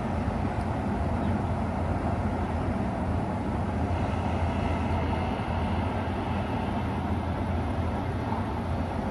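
Steady, distant city traffic noise: a continuous low rumble with no single vehicle standing out.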